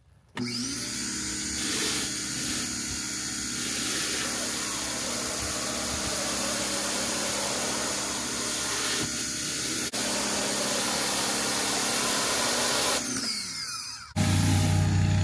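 Greenworks 1900 PSI electric pressure washer's motor starting abruptly and running steadily with the hiss of the spray, then winding down with a falling pitch near the end. Just before the end a louder, lower-pitched steady hum cuts in.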